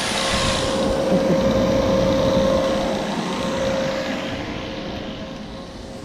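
Refrigerant recovery machine running, a steady mechanical whir with a constant whine, growing fainter over the last few seconds.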